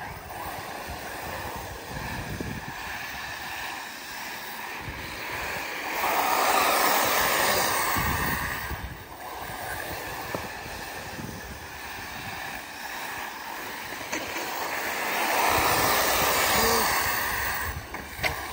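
Arrma Typhon 6S electric RC buggies racing on a loose dirt track: a steady rush of tyres throwing dirt and motors running, swelling twice as the cars pass close by.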